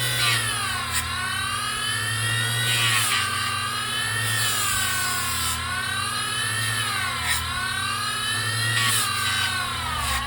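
A small 3-inch bench grinder running with a high whine whose pitch keeps sagging and recovering every second or two, as if the motor is bogging down. A few brief ticks are heard along with it.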